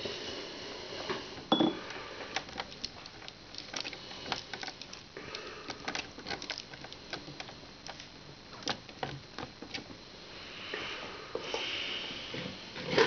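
Irregular light clicks and taps of plastic Lego parts being handled as a paintbrush is fitted into the painting machine's brush holder, with one louder knock about a second and a half in.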